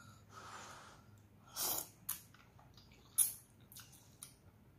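A person eating instant noodles in broth: slurping and chewing close to the microphone, with two louder slurps about one and a half and three seconds in and small wet mouth clicks between.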